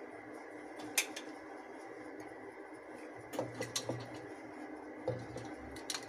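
Light clicks and knocks from an aluminium pressure cooker being handled: one sharp click about a second in and a few lighter ones a few seconds later, over a faint steady hum.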